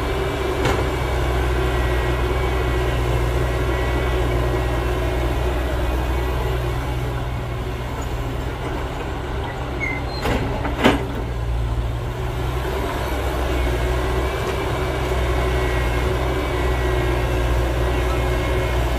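Heavy diesel engines of an excavator and dump truck running steadily with a deep drone. Two sharp knocks come about halfway through, the second the loudest.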